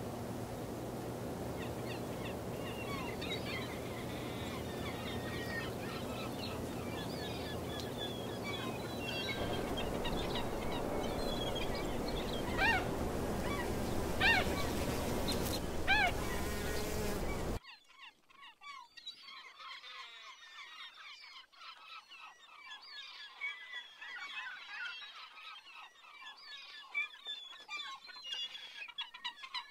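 Many birds calling with short chirps and a few louder sweeping calls, over a steady low hum. About two-thirds of the way through the hum cuts off abruptly and only the bird calls go on, more quietly.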